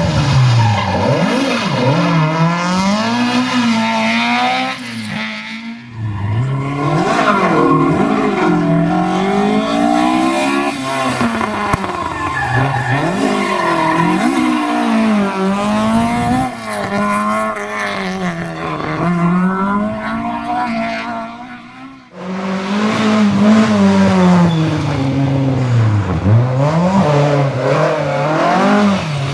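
Ford Escort Mk1 historic rally car driven flat out, its engine revs climbing and falling back again and again through gear changes and braking for corners. The sound breaks off briefly about six seconds in and again near twenty-two seconds, between separate passes.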